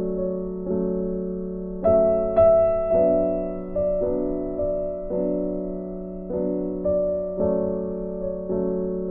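Background piano music: slow chords, a new one struck about once a second and left to fade.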